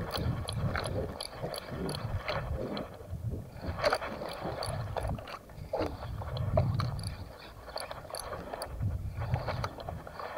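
Sea water slapping and washing against the hull of a small boat in uneven low surges, with a faint, regular ticking a few times a second.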